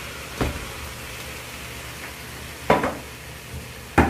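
Minced meat frying with a steady sizzle in a pot of hot oil and tomato sauce, with three sharp knocks as the steel bowl is tapped against the pot, the last two loudest and ringing briefly.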